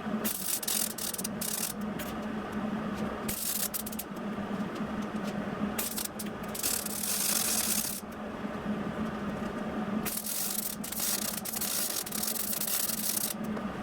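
MIG welder with 0.023 wire crackling in several bursts, welding a nut onto a steel back plate, over a steady low hum. The bursts last from under a second to about three seconds, the longest near the end. The welder blames the poor weld on zinc and yellow chromate plating left on the nut.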